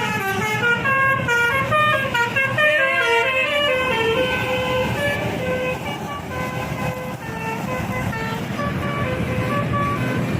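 Basuri 'telolet' multi-tone bus horn playing a tune. A quick run of short stepped notes with a pitch bend gives way to longer held notes about four seconds in, over the low running of the bus engine.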